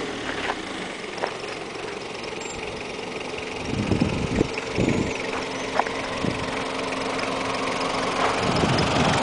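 Vehicle engine running steadily as a small van drives up a dirt road and past, with low rumbles swelling about four seconds in and again near the end.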